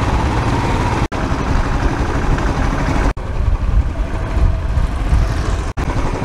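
A two-wheeler's engine running with road and wind noise while riding, heavy and rumbling, broken by three brief dropouts.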